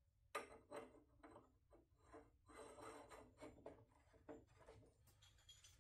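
Faint, irregular scraping and light clicks of a black iron pipe flange being screwed by hand onto the top of a pipe.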